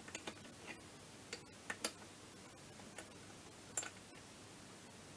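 Faint, irregular light clicks and taps of small metal engine parts being handled and fitted by hand on a scooter engine's crankcase.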